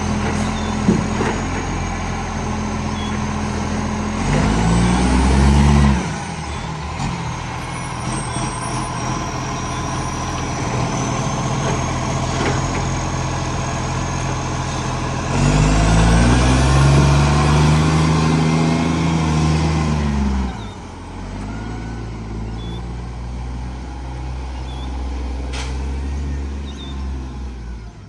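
Garbage truck's diesel engine running with a large exhaust leak, revving up briefly about four seconds in and again for about five seconds past the middle, then dropping back to idle.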